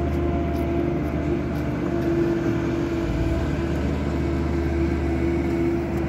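A machine's motor running steadily: a low drone with a constant higher hum over it.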